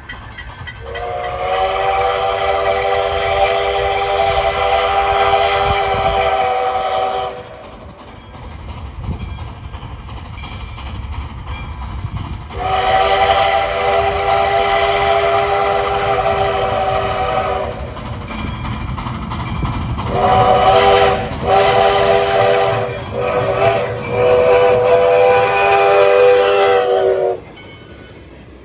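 Steam locomotive 148's chime whistle sounding a loud chord of several notes: two long blasts, a pair of shorter ones, then a final long blast, the crossing signal for a grade crossing. A steady low rumble of the train on the rails runs underneath and is all that remains after the whistle stops, as the cars roll past.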